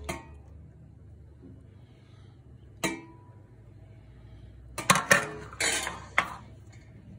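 Metal ladle clinking against a metal baking tray as milk is spread across it: one ringing clink about three seconds in, then a quick cluster of knocks and clinks around five to six seconds.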